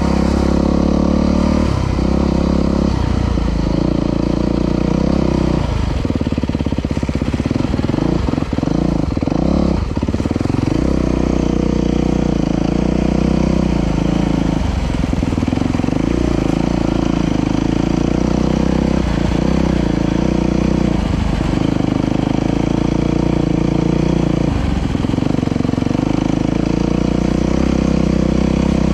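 Dirt bike engine running under way at steady revs. The note briefly drops and picks up again about a dozen times as the throttle is rolled off and on.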